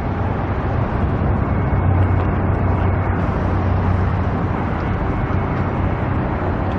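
Steady outdoor background noise with a low, even hum and no distinct events, of the kind made by road traffic and wind around a busy site.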